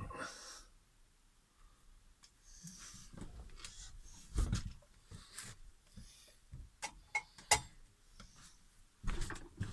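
Scattered clicks, knocks and rustling from handling work by hand, with a louder knock about four and a half seconds in and a sharp click about three seconds later.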